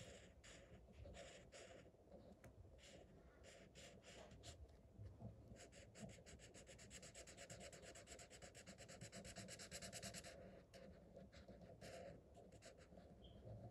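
Faint scratching of a felt-tip marker's tip rubbed back and forth on paper as an area is coloured in: separate strokes at first, then a fast steady run of back-and-forth strokes from about six to ten seconds in, then separate strokes again.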